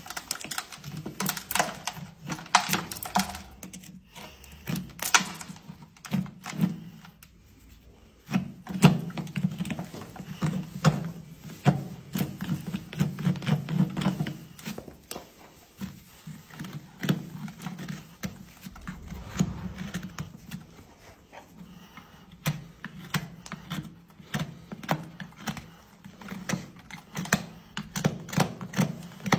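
Farrier's hand tool scraping and prying packed dirt and straw out of the sole of a horse's hoof, in a long irregular run of short scrapes and clicks.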